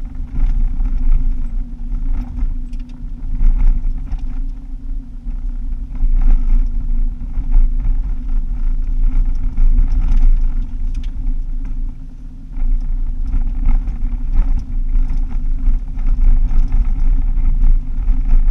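Car driving on an unsealed gravel road, heard from inside the cabin: a steady low engine and tyre drone with scattered clicks and rattles. It eases off briefly about twelve seconds in, then picks up again.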